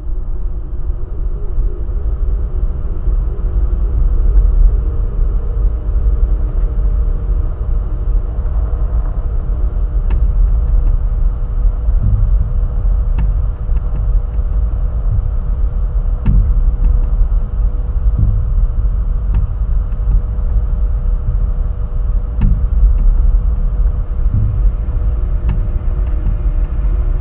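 A loud, steady low rumble with a few faint steady tones above it and occasional soft clicks.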